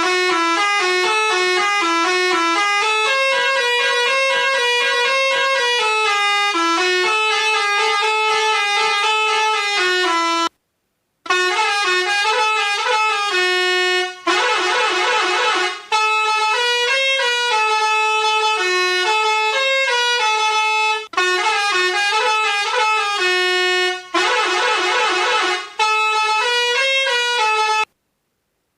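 A telolet basuri horn tune: horn-like tones stepping through a melody, with two fast warbling passages in the middle. It cuts out briefly about ten seconds in and again just before the end.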